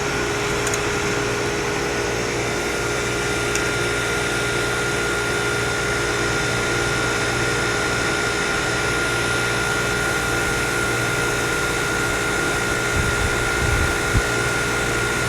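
1973 Gibson 8000 BTU window air conditioner running steadily after restoration: the compressor hums under the rush of the fan's air, with a steady thin tone over it. A few low bumps near the end.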